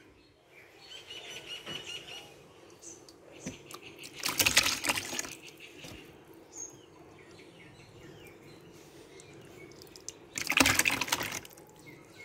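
Thick kitchen-waste liquid fertilizer slurry splashing and sloshing as it is poured into a cloth strainer. There are two loud splashy pours, about four seconds in and again near the end.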